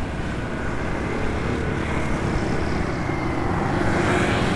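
Street traffic passing, a steady rumble with one vehicle growing louder near the end as it comes close.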